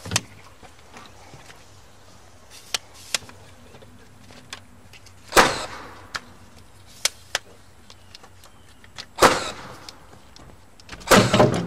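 Cordless framing nailer firing nails into roof framing lumber: a loud shot right at the start, another about five seconds in, another about nine seconds in, and a quick pair near the end, with lighter knocks of wood between.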